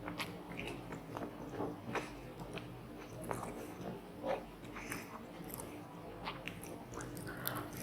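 A person biting and chewing seafood up close, with scattered crisp crunches and wet clicks, over a steady low hum.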